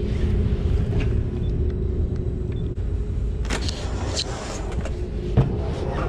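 A metal door latches with a click about three and a half seconds in and shuts with a thud near the end, over a steady low rumble and hum.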